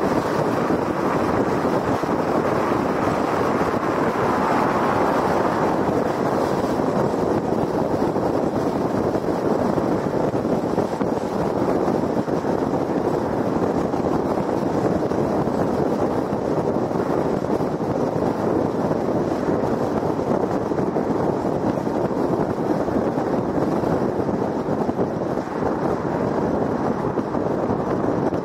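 Steady road noise of a car at highway speed: even tyre roar on concrete pavement mixed with wind rush.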